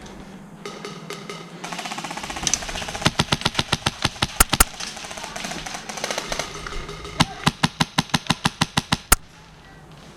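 Airsoft guns firing on full auto in two long bursts of rapid, evenly spaced shots, about ten a second: one a few seconds in, the other near the end.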